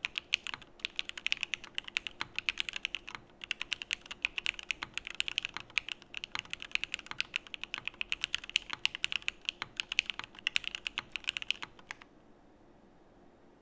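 Typing on a Geonworks Frog mechanical keyboard with lubed Alpaca v2 linear switches on an aluminum plate: a quick, even stream of keystroke clacks with a few brief pauses, stopping about twelve seconds in.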